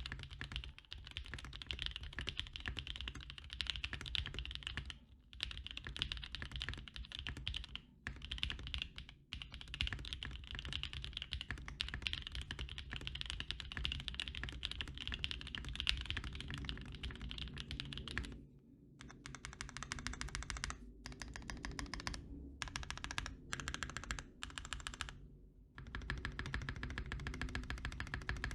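Continuous fast typing on a 60% custom mechanical keyboard with NK Cream linear switches, well broken in, on an FR4 half-plate with GMK keycaps. Rapid key strokes with a few brief pauses, becoming more broken up in the second half.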